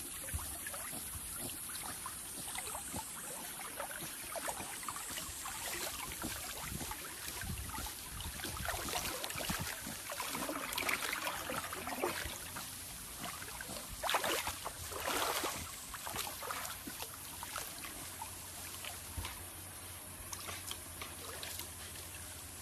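Water lapping and splashing as a corgi dog-paddles, small irregular splashes with a few louder ones in the middle.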